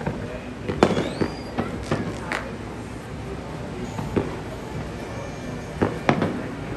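Fireworks going off: a string of sharp bangs at uneven intervals, bunched in the first two and a half seconds and again near the end, with a short rising whistle about a second in.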